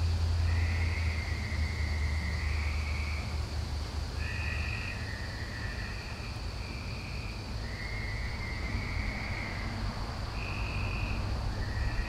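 Frogs calling: short trills repeating every second or so at two different pitches, over a steady high-pitched hum. A low rumble fades out in the first few seconds.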